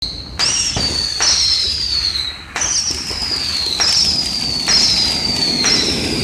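Flaming Vortex spinning ground firework going off: a run of about six high whistles, each starting with a crack and sliding down in pitch, roughly one a second, over the steady hiss of the sparks.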